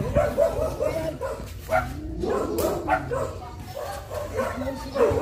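A dog barking and yipping repeatedly in short calls.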